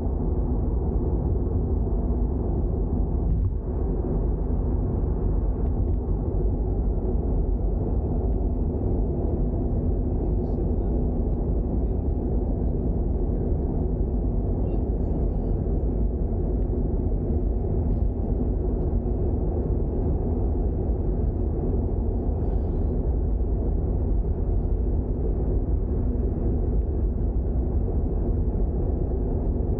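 Toyota GR86 driving at a steady pace: a steady low rumble of its 2.4-litre flat-four engine mixed with road noise, with no revving.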